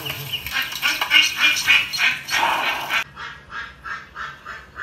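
Ducks or ducklings calling in quick repeated calls, about four to five a second, played through a laptop's speakers. The calls turn duller and quieter about three seconds in.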